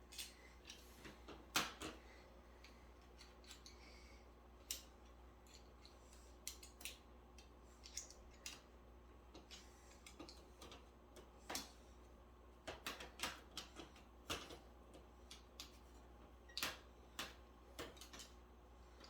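Irregular light clicks and taps from small hard objects being handled, the loudest about one and a half seconds in, with a cluster of quicker taps near the end.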